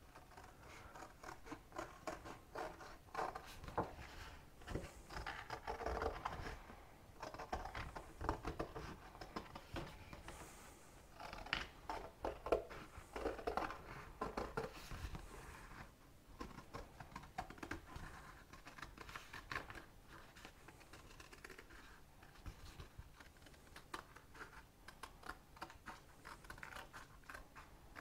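Scissors cutting a circle out of a sheet of stiff paper: a long run of small, irregular snips with the paper rustling as it is turned. The disc is a mask for a brake drum before painting.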